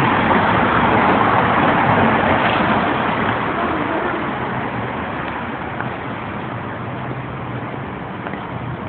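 Street traffic noise: a vehicle goes by, loudest in the first few seconds and fading away, leaving a steady hum of traffic.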